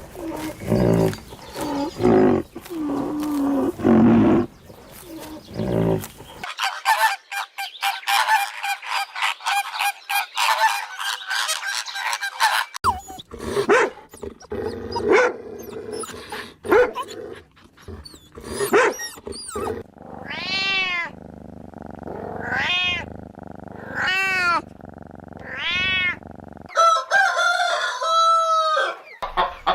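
A run of animal calls from several different animals, one after another. In the last third come about four similar pitched calls, each rising and falling, roughly a second and a half apart.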